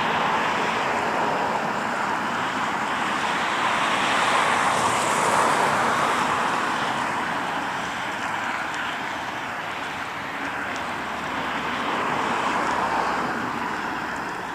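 Road traffic going past: a steady hiss of tyres and engines that swells as vehicles pass, about four to six seconds in and again near the end.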